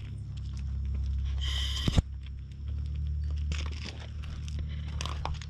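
Crunching and scraping on gravel from movement close to the camera, over a steady low rumble. About one and a half seconds in, a short high-pitched tone ends in a sharp knock, the loudest sound here.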